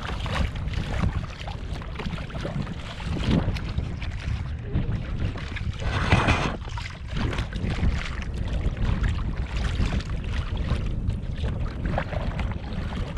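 Wind buffeting the action camera's microphone, with water lapping and splashing close to it; a louder rush of water about six seconds in.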